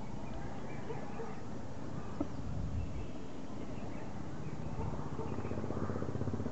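Outdoor ambience: a steady low rumble with faint bird chirps in the first seconds, a small click about two seconds in, and a murmur of distant voices building toward the end.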